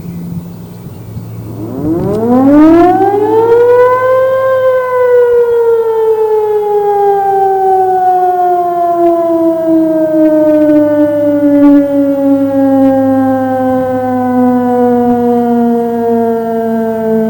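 An old World War II-era electric high-tone siren sounding for its monthly test, switched on only briefly: its wail rises steeply for about three seconds, then slowly sinks in pitch as the rotor winds down.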